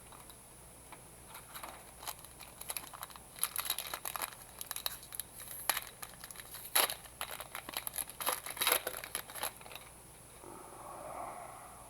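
Trading-card pack wrapper crinkling and tearing as a pack is ripped open, a run of sharp crackles and rustles.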